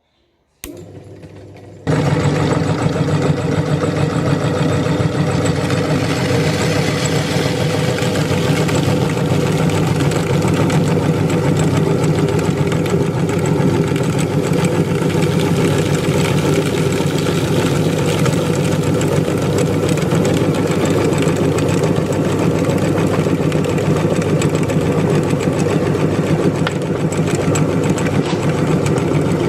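Electric meat grinder motor starting about two seconds in, then running loudly and steadily with a constant hum.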